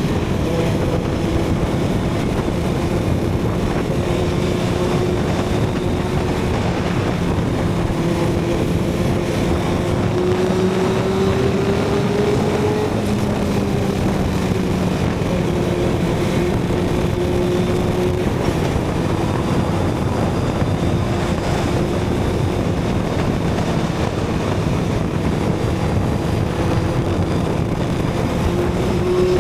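Suzuki GSX-R750 inline-four with a Yoshimura TRS exhaust running at steady riding speed, its note easing up and down a little with the throttle. Steady wind rush over the microphone lies under it.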